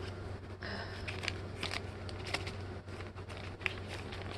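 Plastic bag crinkling, with irregular small clicks of plastic pieces, as diamond-painting tools are packed back into their bag. A steady low hum runs underneath.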